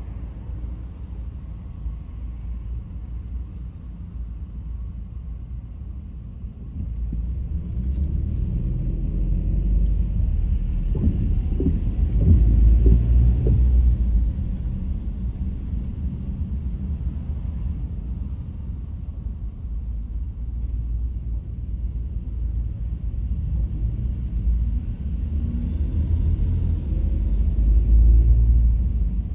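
Car driving, a steady low rumble of engine and road noise. It gets louder about a quarter of the way in and swells twice, once near the middle and once near the end.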